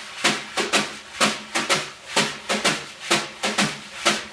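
Wire brushes on a snare drum playing a swing brush beat with both hands, the right hand sweeping the notes instead of tapping them, giving a real nice full brush sound. A steady pulse of about two main beats a second with lighter strokes between.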